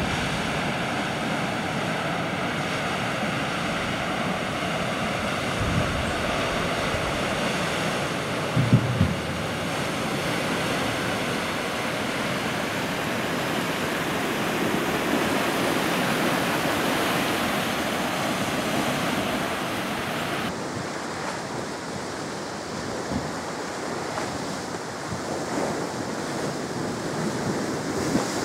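The Severn Bore tidal wave passing: a steady rush of breaking and churning river water, with wind on the microphone. A brief low thump comes about 9 seconds in, and the high hiss drops away about two-thirds of the way through.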